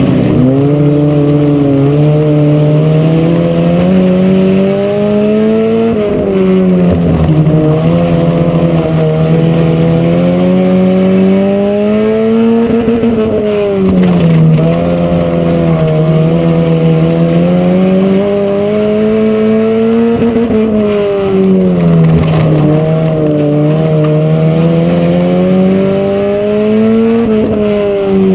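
Dirt-track stock car's engine at racing speed, heard from a camera mounted on the car. Its pitch climbs along each straight and falls sharply going into each turn, about every seven seconds as the laps go by.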